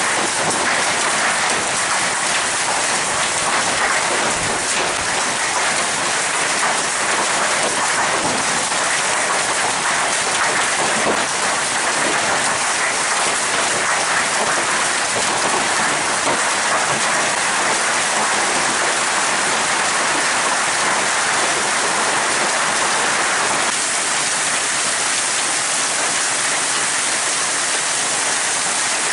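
Hailstorm: hailstones pelting down thickly, a steady, dense patter of countless small hits.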